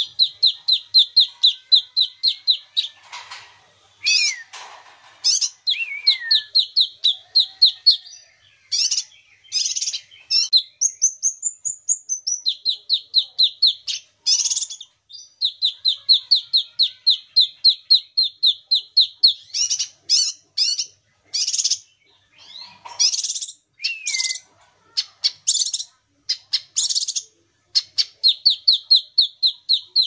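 A kinoi songbird singing in full voice: long trills of rapid, even notes at about four a second, broken by sharp louder notes, a few down-slurred whistles and one rising-and-falling whistle about halfway through.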